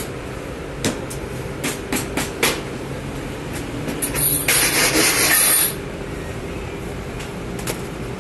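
Bakery working sounds: a steady machine hum under a few sharp knocks and clatters, then a loud hiss lasting about a second and a half, near the middle.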